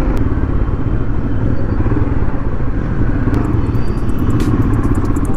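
Royal Enfield motorcycle engine running steadily under way, heard from the rider's seat, with wind and road noise mixed in.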